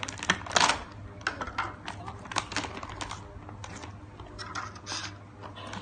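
Foil-and-plastic toy pouch crinkling and crackling in irregular bursts as it is handled and opened by hand.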